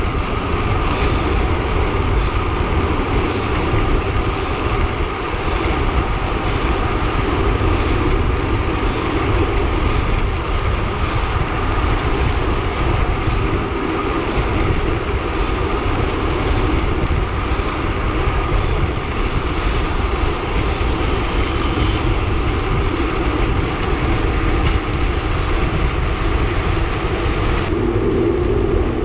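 Steady wind rush on the microphone, with tyre and drivetrain noise, from a road bike ridden at about 40 km/h. The sound changes in character near the end.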